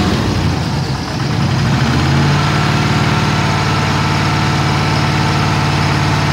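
A truck engine idling, settling into an even idle about two seconds in, with a faint steady whine over it. The engine is kept running so the cooling system builds pressure, to test a copper stop-leak poured into its leaking radiator.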